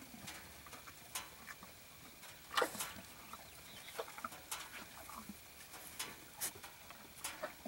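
Cattle crunching hand-fed treats at the fence: a scatter of short, sharp crunches and clicks, the loudest about two and a half seconds in.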